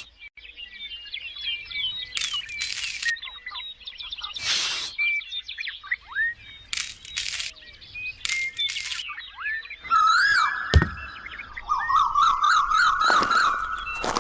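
Small birds chirping repeatedly, broken by several short bursts of noise and a sharp crack about ten seconds in. Over the last few seconds a louder, wavering call, likely a chicken, joins in.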